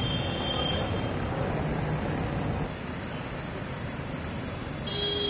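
Steady wash of rain and traffic noise on a waterlogged city street, dropping a little in level about halfway through, with a brief high tone near the end.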